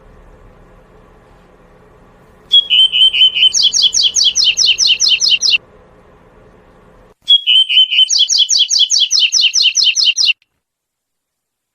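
Double-collared seedeater (coleirinho) singing two phrases of its 'tuí-tuí' song type, each about three seconds long with a short pause between. Each phrase opens with a brief steady note and runs into a fast series of repeated high notes, about four or five a second.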